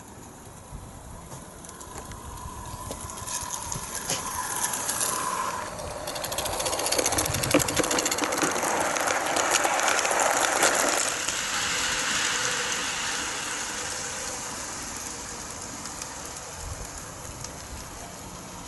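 Garden-scale model goods train approaching and running past close by, its wheels ticking rapidly over the track. It is loudest about seven to eleven seconds in, then fades away as it moves off.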